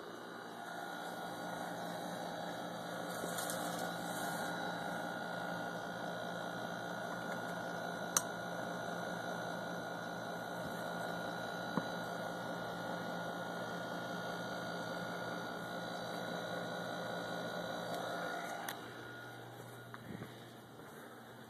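Steady electrical hum with a whirring noise underneath, broken by a few faint clicks. The whir drops away about 18 seconds in, leaving a lower, quieter hum.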